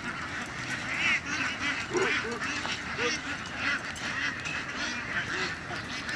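A large flock of laying ducks crowded together, quacking in many overlapping calls.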